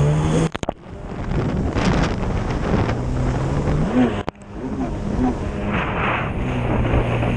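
Racing snowmobile engine at high revs as the sled skims across water, its pitch rising and falling with the throttle, over wind buffeting the microphone and the hiss of spray. The sound cuts out briefly twice, about half a second in and a little past the middle.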